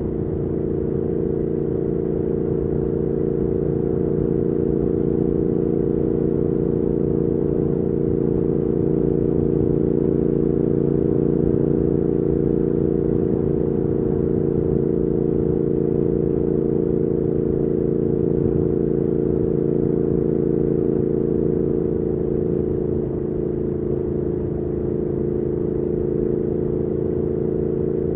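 2019 Triumph Speed Twin 1200's parallel-twin engine running through a Weslake Shorty Pro exhaust at a steady cruise, its note holding nearly constant, easing off slightly for a moment about 22 seconds in.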